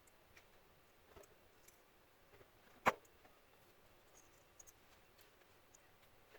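Faint scattered taps and clicks of small hard objects being handled, with one sharp, much louder click about three seconds in.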